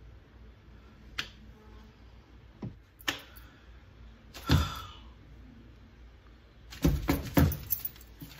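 Keys on a neck lanyard jangling in scattered clicks: a few single ones, then a quick cluster of several near the end, which is the loudest part.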